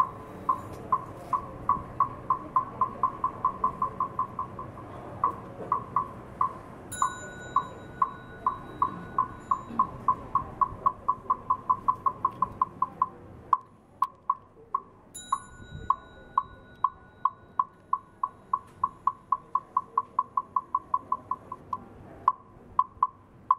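Wooden fish (temple wood block) struck in a quick, even beat of about three knocks a second, speeding up over the first few seconds, keeping time for Buddhist chanting. A metal bowl bell is struck twice, about seven seconds in and again past the middle, and rings on.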